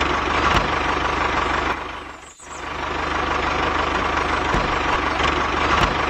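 Tractor engine running steadily at a low idle with a knocking beat; it fades almost away about two and a half seconds in and comes straight back up.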